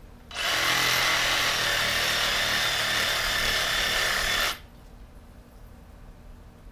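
DeWalt cordless reciprocating saw with a 12-inch wood-cutting blade running as it cuts through a bush's roots in the soil, an even buzz that stops abruptly about four and a half seconds in.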